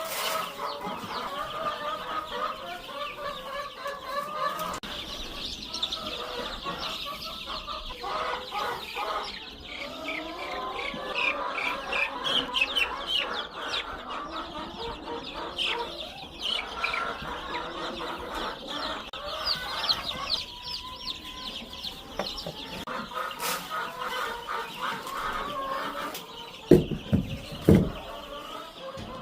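A flock of chickens clucking steadily, mixed with a dense chorus of high, rapid peeping from baby chicks. Two loud thumps come near the end.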